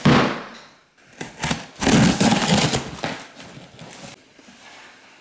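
A large cardboard box set down on a granite countertop with a sudden thud, followed by a couple of seconds of cardboard scraping and rustling as it is handled, then quieter sounds of scissors cutting the packing tape near the end.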